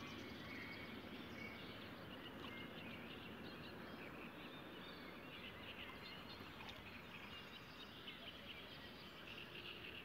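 Quiet lakeside ambience: faint distant birds chirping over a steady low hiss.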